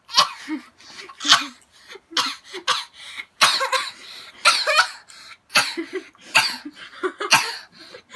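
A person coughing over and over, about a dozen short, sharp coughs.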